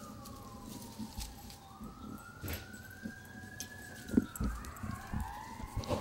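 A distant siren wailing, its pitch sliding slowly down, up and down again, with more wails overlapping near the end. Short thumps and rustles break in, the loudest about four seconds in.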